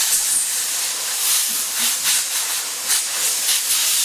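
Compressed-air blow gun blasting dirt off a skid steer's lift cylinder: a continuous loud hiss that surges and dips as the nozzle moves.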